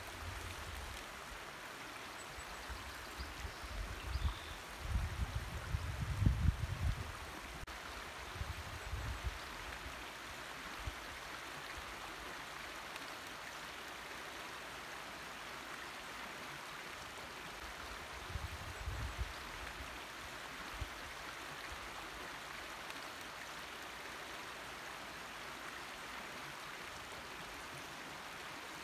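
A shallow creek running over flat shale rocks, a steady even rush of water. Low rumbles break in twice, about five seconds in and again around nineteen seconds in.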